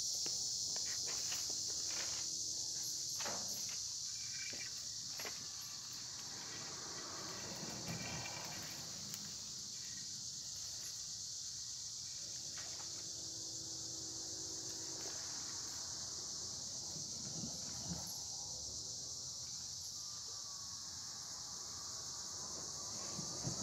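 Insect chorus: a steady, high-pitched drone, with faint scattered clicks beneath it.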